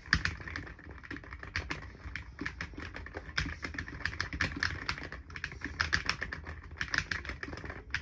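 Typing on a new mechanical keyboard: keys clacking in quick bursts of rapid keystrokes with brief pauses between them.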